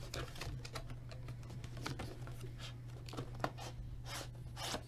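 Typing on a computer keyboard: irregular, closely spaced key clicks over a low steady hum.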